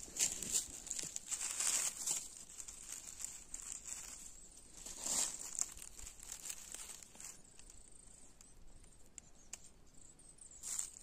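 Dry fallen leaves crinkling and rustling as hands brush through them, in bursts: strongest in the first two seconds and again about five seconds in, fainter in between.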